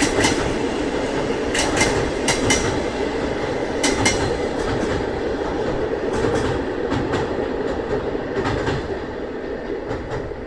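Passenger coaches rolling past at speed with a steady rumble and clickety-clack: wheels knock over rail joints in quick groups every second or two, one group per bogie pair. The sound slowly fades near the end as the train moves away.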